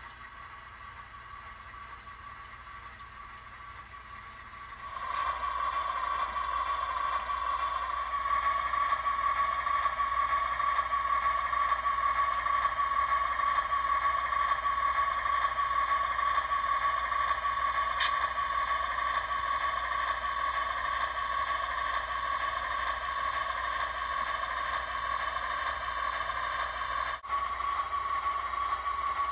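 An HO scale model train starts running about five seconds in, then runs steadily with a high-pitched hum.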